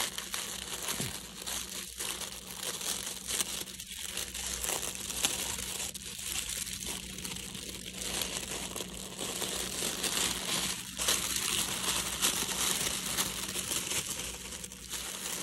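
Shiny metallic wrapping paper crinkling and rustling continuously as hands unfold it and pull a parcel open.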